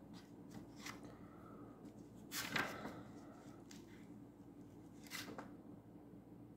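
Pages of a hardcover book being turned and handled: a few soft paper rustles, the loudest about two and a half seconds in, over a faint steady hum.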